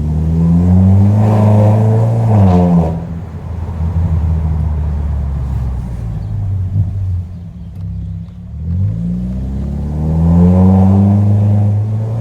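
Citroën DS5's 1.6 THP turbocharged four-cylinder, with a downpipe and straight-through exhaust without a silencer, revving up hard twice under acceleration, with a loud, shrill exhaust note. Between the two pulls it drops back to a lower, steady drone.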